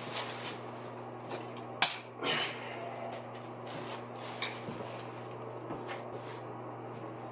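A few scattered clicks and knocks as hand tools and installation bits are handled and put away, the sharpest about two seconds in, over a steady low hum.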